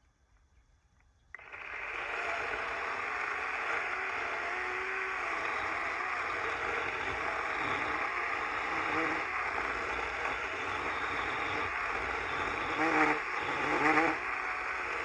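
DeWalt 20-volt battery chainsaw cutting into a tree trunk: it starts abruptly about a second in and runs steadily, with two louder swells near the end.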